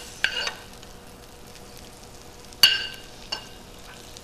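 Metal spoon scraping and knocking against a nonstick skillet while sautéed corn and carrots are spooned out onto a plate: a few short ringing clinks, the loudest about two and a half seconds in, over a low steady hiss.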